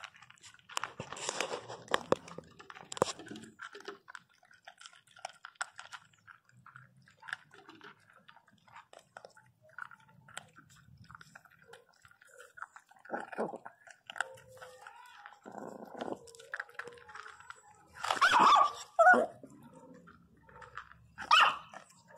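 Dogs crunching dry kibble from a bowl: a run of small crunchy clicks in the first few seconds, then scattered chewing. Near the end there are a couple of short, loud barks.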